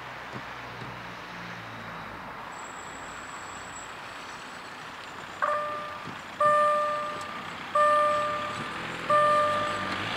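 Railway level-crossing warning bell starting up about five and a half seconds in, then striking about once every second and a third. Each stroke is a ringing tone that fades before the next, signalling that the crossing has been activated for an approaching train. Before the bell, only a steady low background noise.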